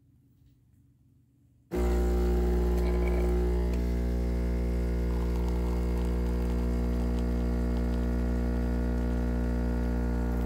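Near silence, then about two seconds in the pump of a Philips 3200 automatic espresso machine switches on abruptly and runs with a steady buzzing hum.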